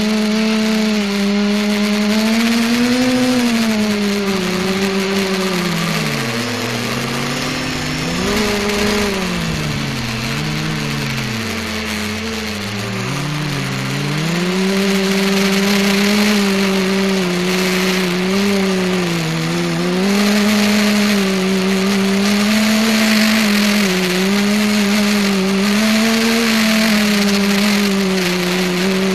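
ETFD2 flying-disc multicopter's motors and propellers humming, heard from the camera on board. The pitch swings up and down with the throttle, dropping low several times through the middle, then holds fairly steady.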